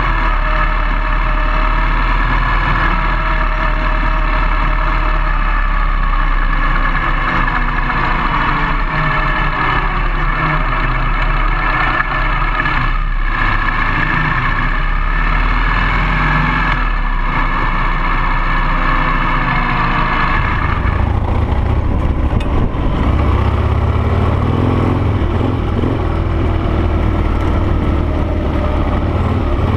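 Harley-Davidson Sportster-based dual-sport motorcycle's air-cooled V-twin engine running at fairly steady revs. About twenty seconds in, the engine note changes and becomes lower and heavier.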